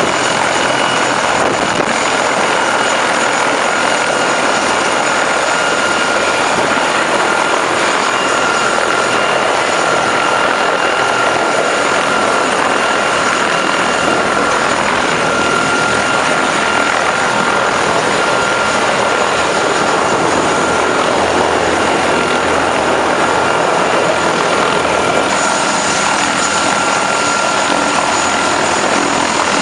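Turbine helicopter running on the ground with its rotor turning: a steady loud rush with a high, steady whine.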